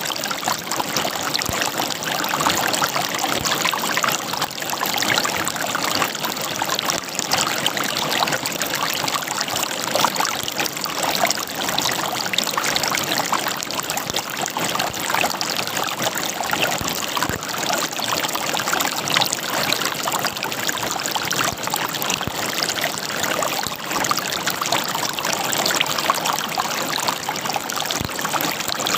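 River water flowing and gurgling over rocks, a steady splashing burble with many small bubbling flickers.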